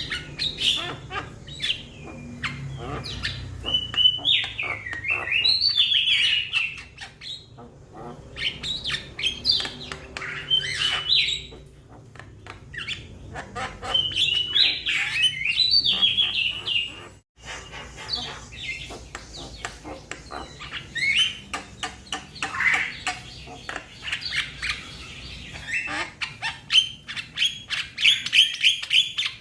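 Young Javan mynas calling: harsh chattering, squawking and short whistled notes, coming in busy bouts of a few seconds separated by brief pauses. The sound cuts out abruptly for a moment a little after the middle.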